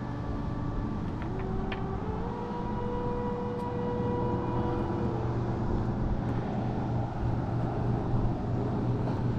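Distant road traffic: a vehicle engine's hum climbs in pitch about two seconds in, holds, and drops back about five seconds in, over a steady low rush.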